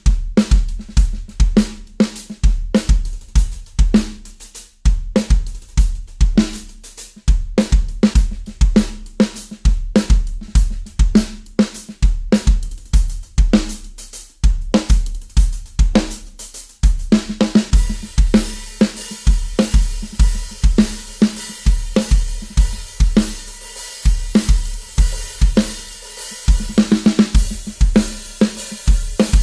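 A drum kit played solo: fast bass-drum strokes, snare and hi-hat. From about halfway through, cymbals crash and ring continuously over the beat.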